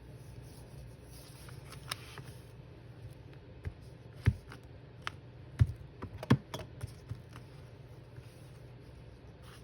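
Handling of paper craft materials on a tabletop: scattered small taps and clicks, with three louder knocks near the middle.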